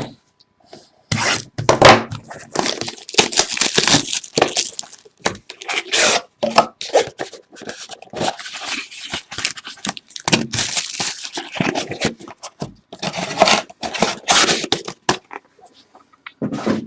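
Plastic and foil wrapping being torn and crinkled by hand as a sealed box of trading cards and its packs are ripped open, in a run of crackling bursts with short pauses.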